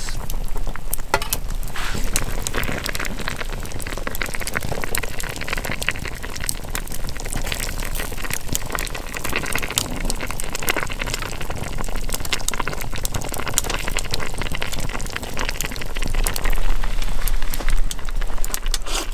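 Wood fire crackling with many small sharp pops, under a pot of hotpot broth bubbling with udon noodles.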